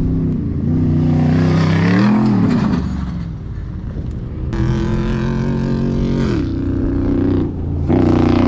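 Truck engine revving hard under load, its pitch climbing and then dropping several times as it shifts. A rushing hiss accompanies the first surge.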